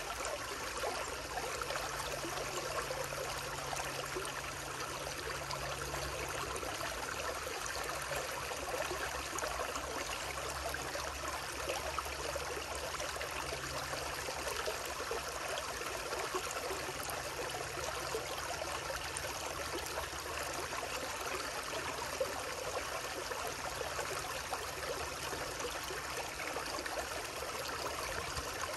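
Water of a stream running steadily, an even, unbroken flow.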